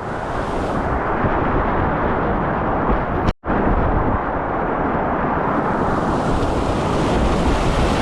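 Rushing whitewater on a mountain river, a loud, steady roar with rumbling buffeting on the microphone. The sound drops out for a moment a little over three seconds in.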